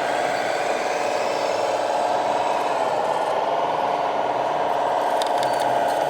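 A radio-controlled model truck's small motor running with a steady whine that dips in pitch about three seconds in, with a few faint clicks and rattles near the end.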